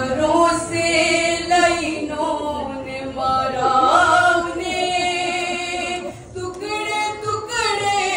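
A woman's voice reciting an Urdu nauha (a Shia lament) into a microphone with no accompaniment, singing long, held, wavering lines.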